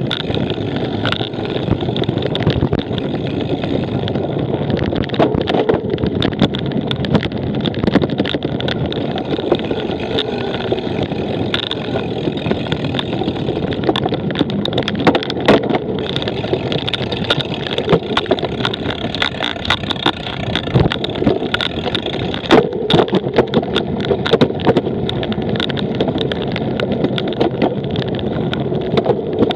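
Cyclocross bike ridden over rough ground, rattling and knocking frequently, under a steady rush of wind on the microphone.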